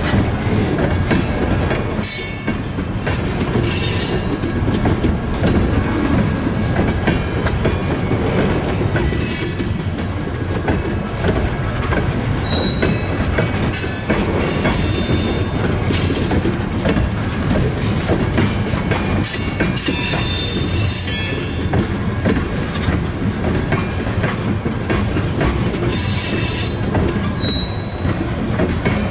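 Tank cars of an oil train rolling past: a steady rumble of wheels over the rail joints, broken every few seconds by short bursts of high-pitched wheel squeal.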